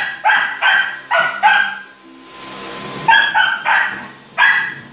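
Small dog barking in quick, high yaps, about three a second: four barks, a pause of about a second, then four more.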